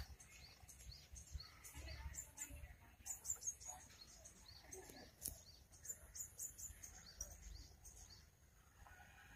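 Faint outdoor ambience: small birds calling in the background, many short high chirps scattered throughout.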